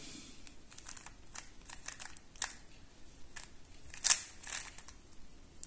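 A plastic 3x3 speed cube's layers being turned by hand: a string of quick clicks and clacks, the sharpest one about four seconds in.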